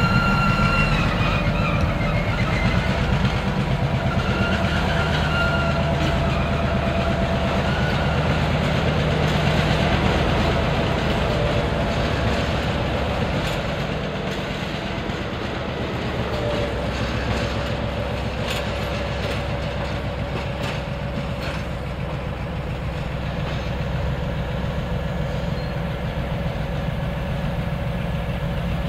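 EMD SW1200 switcher locomotive's 12-cylinder two-stroke diesel running steadily as it moves a string of loaded lumber flatcars at low speed. Wheels click over the rail joints, with a few brief high squeals in the first several seconds.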